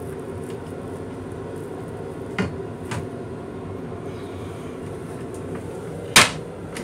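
A plastic toilet seat is handled and lowered, giving a couple of light knocks and then a sharp clack about six seconds in as it comes down onto the stainless-steel bowl. A steady hum from the M7 railcar runs underneath.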